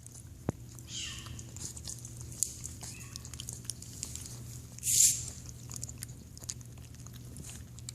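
A cat eating ground-up raw chicken from a dish, with irregular small wet chewing and licking clicks. One brief, louder hissing burst comes about five seconds in, over a steady low hum.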